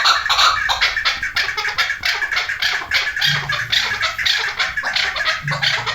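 Chukar partridges calling: a fast, unbroken run of harsh, clipped chuck notes, several a second.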